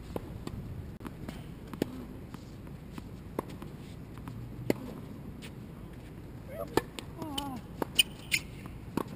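Sharp single knocks of a tennis ball bouncing and being struck on an outdoor hard court, a second or more apart, with a quicker cluster of hits near the end. A short gliding squeak sounds around seven seconds in.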